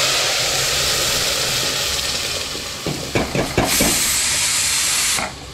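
Loud sizzling hiss of wet ground masala paste hitting hot oil in an aluminium pot, with steam boiling off. It eases a little about three seconds in, swells again as the last of the paste is scraped in, and cuts off near the end.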